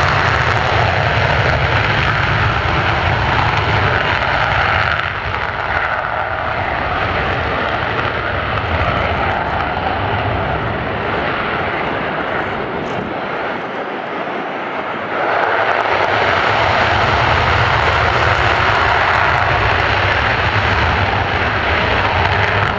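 F-35 fighter jet engines running, loud and steady. About five seconds in the sound drops and thins to more distant jet noise. About fifteen seconds in it jumps back up as an F-35 takes off on full afterburner.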